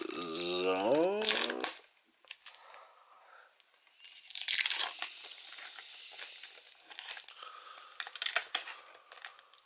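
Plastic shrink-wrap being torn and peeled off a steelbook case, crackling and crinkling in rough bursts through the second half. A brief wordless vocal sound with a sliding pitch comes at the start.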